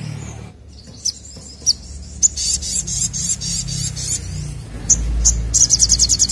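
Male olive-backed sunbird (sogokontong) singing: scattered sharp, high chirps, a run of quick high notes, then a fast high trill near the end.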